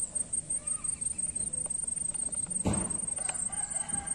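A high-pitched insect call pulsing steadily, with one short thump about two and a half seconds in and a few faint clicks after it.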